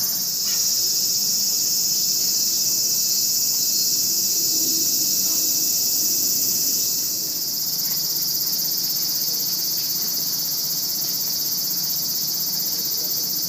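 Cicadas calling in the trees: a dense, steady, high-pitched sizzling chorus that does not let up.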